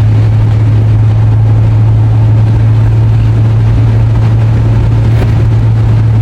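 Steady low drone of a car driving at freeway speed, heard from inside the cabin, with road and wind noise.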